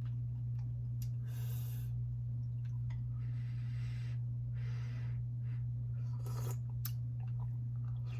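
Eating noises from cracking and picking at cold steamed blue crabs: a few short crackling, rustling bursts and sharp clicks of shell, over a steady low hum.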